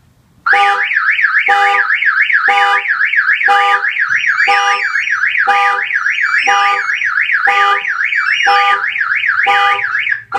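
Autopage RS915 car alarm siren on a GMC Sierra going off loudly, a rapid up-and-down warble with a lower tone pulsing about once a second. It starts about half a second in and cuts off near the end. The catalytic converter sensor has tripped because someone is touching the underside of the truck.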